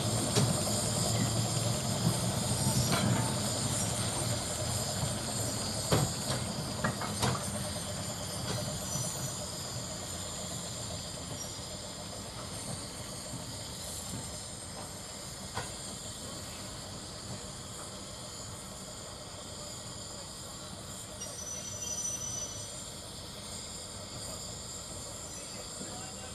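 Steam locomotives hissing, loud at first and dying away over the first half, as a Sentinel steam shunter creeps along with a rake of goods vans. Scattered clanks and knocks of the wagons come through, and a short high squeal sounds about four-fifths of the way through.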